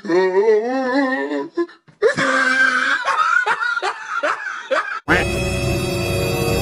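A wobbling, warbling pitched tone for about a second and a half, then about three seconds of laughter with short, evenly spaced bursts, both edited into the prank footage as comedy effects. About five seconds in, the laughter cuts off abruptly and music starts.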